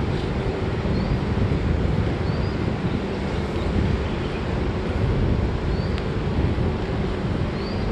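Wind rumbling on a phone's microphone over a steady background of road traffic, with a few short high chirps scattered through it.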